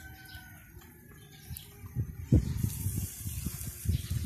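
Pork belly skewers sizzling over a charcoal pot grill: a high hiss that comes in a little past halfway. Under it run irregular low rumbling thumps, the loudest just past halfway.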